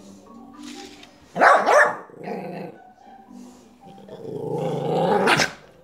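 Small terrier-type dog barking twice about a second and a half in, then growling, the growl building into another bark near the end: wary barking and growling at a crawling robotic spider toy.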